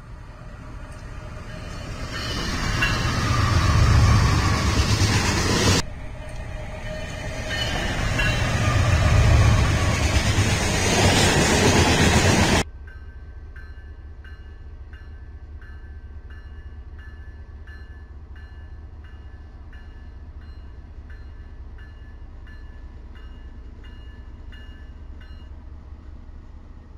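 Trains passing close by: a heavy rumble and rail noise that swells to loud, breaks off abruptly, returns as loud and breaks off again about halfway through. Then a quieter low idle of BNSF diesel locomotives moving slowly through a yard, with a locomotive bell ringing in steady repeated dings that stop near the end.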